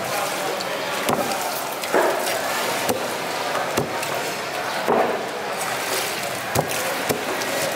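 Knife chopping a fish fillet on a wooden chopping block: sharp knocks about once a second over steady background noise.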